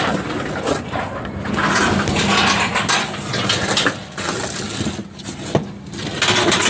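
Steel scaffold pipes clinking and clattering against each other, with scattered sharp metallic knocks, over a steady low machine hum.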